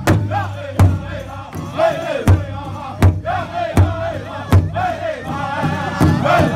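Powwow drum group singing an intertribal song: several men strike a large hide drum together in a steady beat of about four strokes every three seconds, under high, wavering chanted singing.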